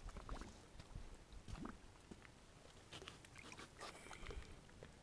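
Near silence with faint scattered scuffs and small knocks, a few weak ones spread over the few seconds.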